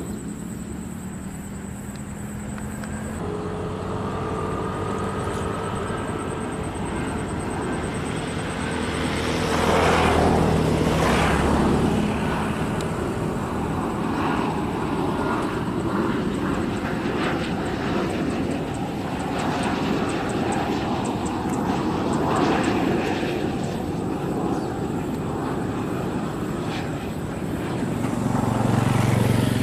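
Boeing 737-300's CFM56-3 jet engines on final approach: a steady roar with a faint whine, growing louder about ten seconds in, holding, then swelling again near the end as the jet nears touchdown. It opens briefly with the quieter sound of an Airbus A320 just after touchdown.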